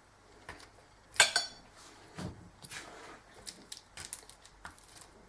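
Cutlery clinking and scraping on a dish while butter is put onto baked potatoes: one sharp ringing clink about a second in, then lighter taps and scrapes.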